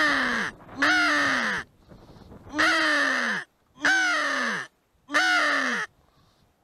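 Mouth-blown crow call sounding five loud, evenly spaced caws, each under a second and falling in pitch at its end. It is being blown to decoy crows into shotgun range.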